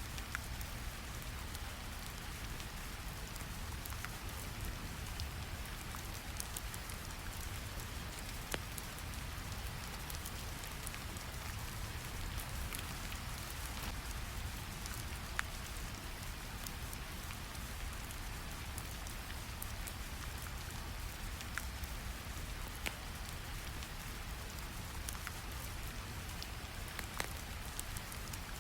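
Steady rain layered over a deep, even brown-noise rumble, with scattered sharp crackles from a fire sound.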